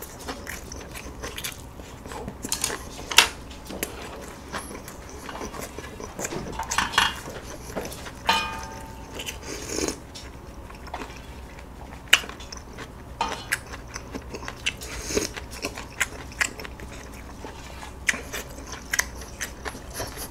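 Close-miked eating: chewing of egg kimbap and sips of ramen broth from a wooden spoon, with scattered sharp clicks of utensils against dishes.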